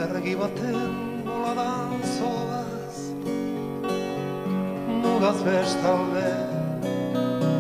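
Live acoustic band playing an instrumental passage: strummed acoustic guitars with accordion and keyboard.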